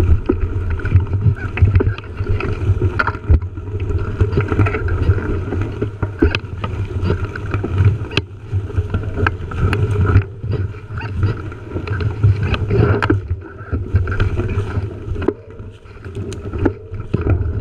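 Wind buffeting a GoPro's microphone on a moving mountain bike, a steady low rumble, with the tyres rolling over dry dirt and leaf litter and frequent sharp rattles and knocks from the bike on rough trail.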